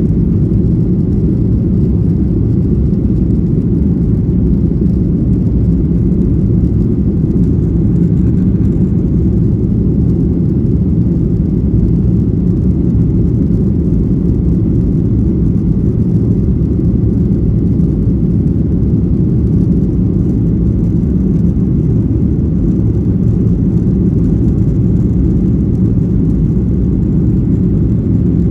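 Airliner cabin noise: a steady, loud, low rumble of the engines and airflow heard from inside the passenger cabin.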